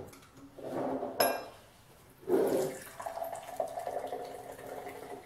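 Red Bull poured from a can into a glass, the liquid splashing and fizzing as it fills, starting loudest about two seconds in and settling into a steady pour. A sharp click comes about a second in.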